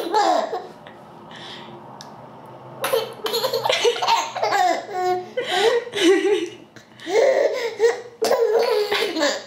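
Baby with the hiccups laughing: a short burst at the start, then after a quieter gap two longer bouts of high-pitched laughter in the second half.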